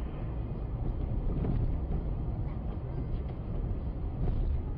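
Steady low rumble of a car's engine and tyres heard from inside the cabin, driving on a slushy, snow-covered highway.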